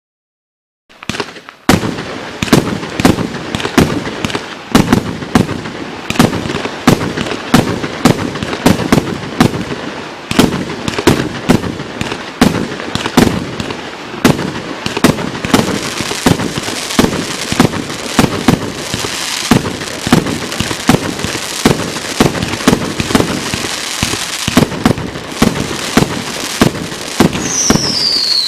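Blizzard AA 40s firework going off: a fast, continuous run of sharp bangs and crackles starting about a second in, with a short falling whistle near the end.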